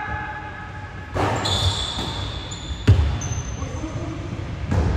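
Basketball being bounced on a hardwood gym floor, with low thuds, sneaker squeaks and a sharp knock about three seconds in, the loudest sound.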